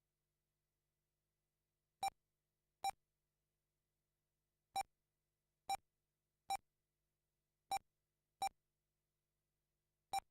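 Eight short, identical electronic beeps at one pitch, spaced irregularly: an RC race lap-timing system beeping each time a car crosses the timing loop and a lap is counted.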